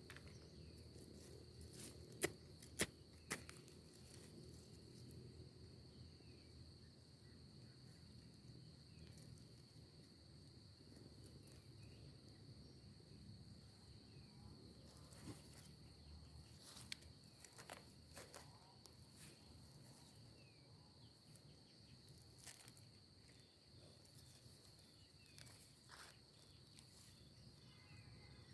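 Faint steady high-pitched drone of insects, with scattered sharp clicks and snaps, three close together about two to three seconds in and more later.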